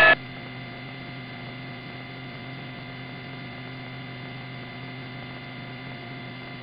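Steady electrical hum with faint hiss on an open radio audio feed between transmissions, just after a transmission cuts off at the start.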